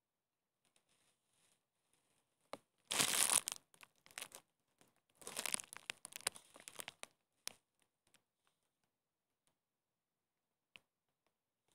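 Two bursts of rustling, crinkling noise, the first short and loudest about three seconds in, the second longer about five to seven seconds in, with a few sharp clicks scattered around them.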